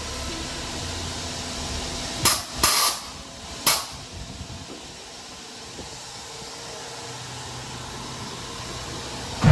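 Steady hiss with three short, sharp spray blasts about two to four seconds in, like a car-wash pressure-washer gun being triggered.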